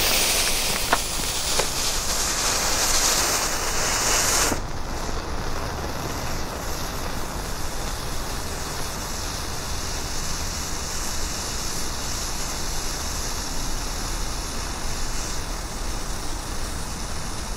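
Hundehaufen novelty snake firework burning with a hissing flame: a loud hiss for the first four and a half seconds, then a softer steady hiss as the ash snake grows out of it.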